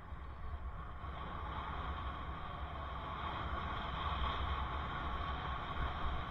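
Wind rumbling on a helmet camera's microphone, mixed with tyre and street traffic noise while riding a bicycle. It grows louder over the first couple of seconds, then holds steady.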